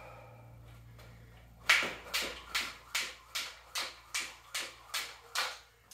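Skipping rope in steady use: the rope slapping the floor and feet landing in an even rhythm of about two and a half strikes a second, starting about a second and a half in.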